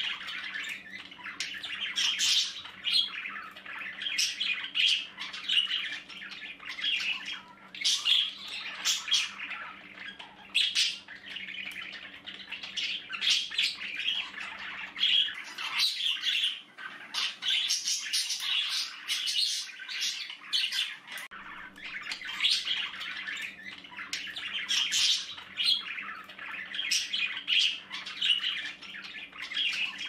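Budgerigars chattering, a dense run of quick chirps and squawks.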